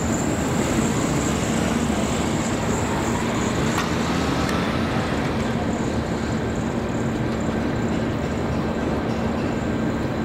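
Diesel locomotive hauling a two-car electric train slowly through a curve: its engine runs at a steady note while the wheels roll over the rails.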